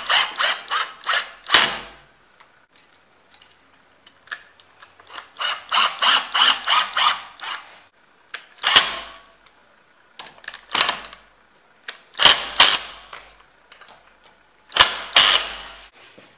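Rapid ratcheting clicks from a screw-driving tool as the screws holding a steel floating-shelf bracket are tightened into wooden wall plugs. Two runs of quick clicks, then four shorter bursts a second or two apart as the screws seat.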